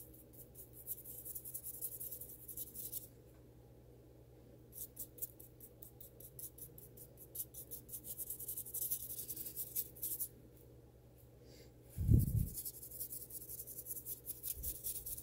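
Fan brush scrubbing dry weathering chalk into a painted foam model road: rapid scratchy strokes in three spells. A single dull thump about twelve seconds in.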